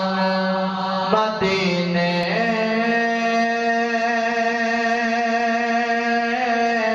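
A man's solo voice singing a manqabat, a devotional praise poem, unaccompanied. He shifts pitch in the first two seconds, then holds one long drawn-out note for about four seconds.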